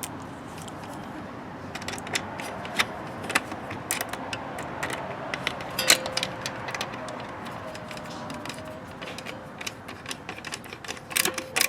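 Scattered small metallic clicks and clinks of a screwdriver and wires at the terminal screws of an air conditioner disconnect box, coming more thickly near the end.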